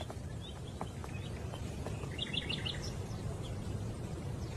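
Outdoor garden ambience: faint bird chirps, with a short cluster of quick chirps about two seconds in, over a low steady background rumble.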